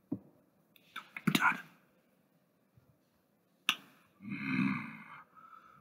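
A few sharp clicks and brief handling noise as plush toys are moved by hand, then a short murmured vocal sound lasting about a second near the end.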